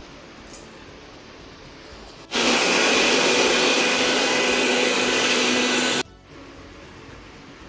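Electric mixer grinder with a stainless-steel jar running for about three and a half seconds, grinding cooled cooked masala into a paste: a loud, steady whir with a steady hum under it that starts and cuts off abruptly.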